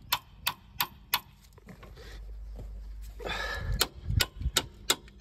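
Hammer blows on the end of a wrench fitted to a rusted suspension nut: four sharp metallic knocks about three a second, a pause of about two seconds, then another quick run of knocks near the end. The blows shock the rusted threads so the heated nut comes loose.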